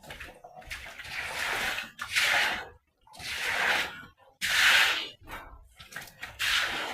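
Standing water being cleared out by hand, splashing in a run of separate surges, each about half a second long and coming roughly once a second.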